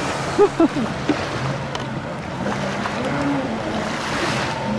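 Jet ski engine running at low speed, a steady drone with water and wind noise over it. About half a second in come two short, loud sounds that fall in pitch, like brief vocal cries.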